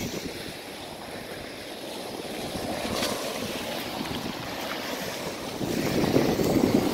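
Surf washing onto a rocky beach, with wind on the microphone. The rush of water swells louder near the end.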